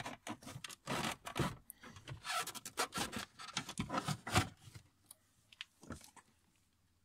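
Plastic lower dashboard trim panel of a BMW E46 being pulled and worked out of its brackets: hard plastic scraping and rubbing against the dash with irregular clicks and knocks, dying down about five seconds in to a couple of faint clicks.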